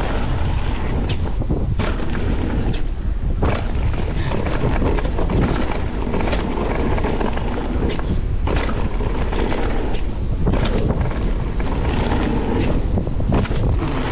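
Mountain bike being ridden on a wet trail, with wind rushing over the microphone and tyre rumble throughout. Sharp knocks and rattles come from the bike every second or two as it goes over bumps.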